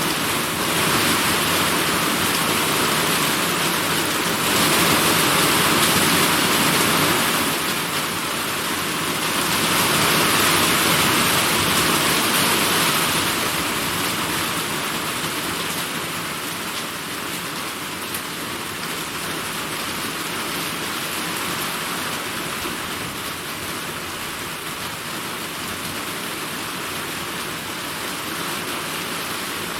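Heavy summer rainstorm: a steady downpour that swells twice in the first half, then eases a little and falls evenly.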